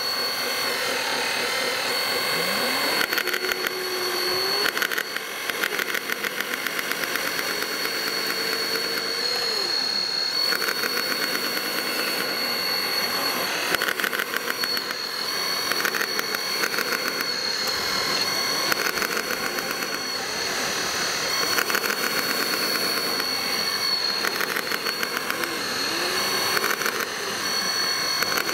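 Radio-controlled model wheel loader working in gravel: a steady high whine from its motors, with motor sounds that rise and fall in pitch several times as it drives and works its bucket.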